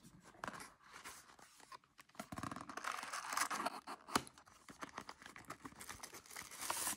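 Small cardboard gift box handled and opened by hand: card scraping and rustling, with a sharp click about four seconds in.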